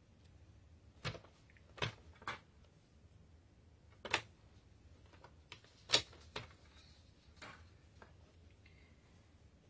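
Light, scattered clicks and taps of a plastic paper trimmer being handled, its cutting rail and blade carriage knocking as a small paper strip is positioned for trimming. There are about seven separate clicks, the loudest about four and six seconds in.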